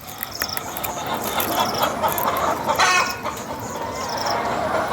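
A flock of young grower-stage layer chickens clucking and calling together, many birds at once, with one louder call about three seconds in.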